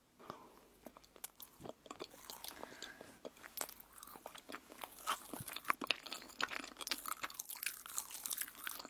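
Close-miked biting and chewing of crunchy food: dense crisp crackles that thicken about two seconds in.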